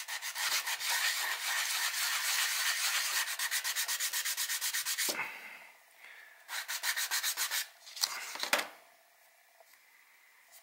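A small miniature base, edged with dried, rubbery contact cement, is rubbed back and forth on a fine sandpaper block in quick, even strokes for about five seconds. After a short pause comes a second, briefer run of strokes, and the sanding stops about nine seconds in.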